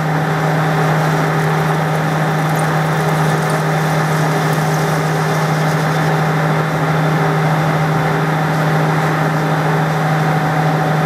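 Metal lathe running under a light cut, the insert tool turning a convex curve on the end of the spinning workpiece. A steady hum with a constant low tone and a fainter hiss above it, unchanged throughout.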